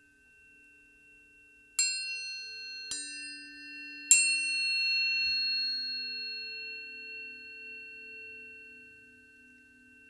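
Tuning forks struck three times, each strike with a sharp click and a bright ring that settles into steady pure tones. Several pitches sound together and fade slowly over the following seconds. The third strike is the loudest.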